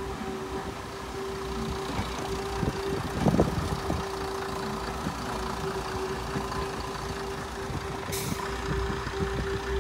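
Heritage first-generation diesel multiple unit running slowly past: steady engine rumble with a held whine over it. A few wheel knocks, likely over rail joints, come about three seconds in, and a short hiss comes near the end.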